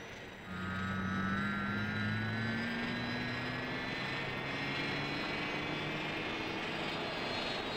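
Sound effect of the Thunderbirds helijet's engines spooling up for lift-off: a steady whine that climbs slowly in pitch over a low hum, starting about half a second in.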